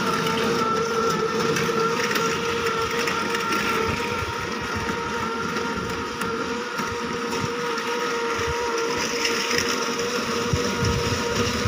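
Motor of a push-along cow dung collecting machine running with a steady whine over an uneven low rumble as it is wheeled along, picking up dung.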